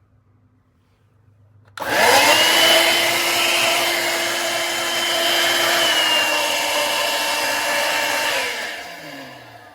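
Shark cordless stick vacuum switched on about two seconds in, its motor whine climbing quickly to speed. It runs steadily for about six and a half seconds, then is switched off and winds down with a falling whine.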